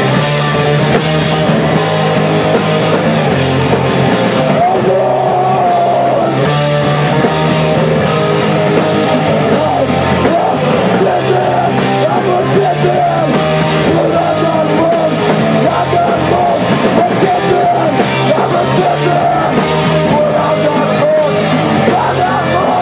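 Hardcore punk band playing live: distorted electric guitars and bass guitar, with a vocalist screaming into a microphone.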